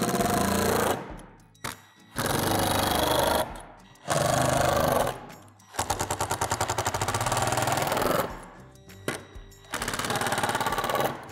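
Cordless impact driver driving screws to fasten a square tube to a plastic shed gable panel, in five bursts, the longest about two and a half seconds of rapid, even hammering. Background music runs underneath.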